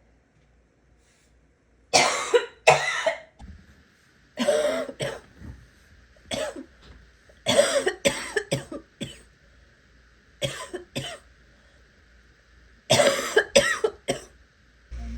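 A person's gagging cough, coming in about six short fits of one to three harsh coughs each, with quiet pauses between.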